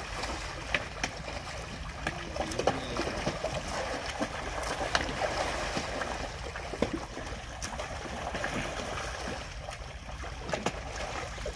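Water lapping and trickling, with scattered light clicks and knocks.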